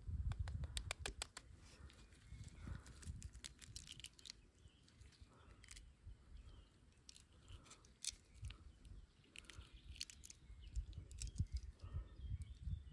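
Close handling sounds of a quail egg being cracked and picked open with rubber-gloved fingers: a quick run of small sharp clicks in the first second, then scattered shell clicks and crackles with glove rustle. Faint bird chirps in the background.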